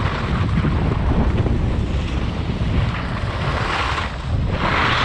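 Wind buffeting the microphone during a downhill ski run, with the hiss of skis sliding over packed, groomed snow. Near the end the snow hiss gets louder and brighter as the skis slow toward the lift.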